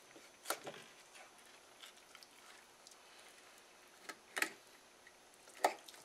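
Kitchen knife cutting crosswise through a flounder on a wooden cutting board: a few sharp knocks of the blade against the board, a pair about half a second in, then more around four and a half seconds and near the end, with faint room noise between.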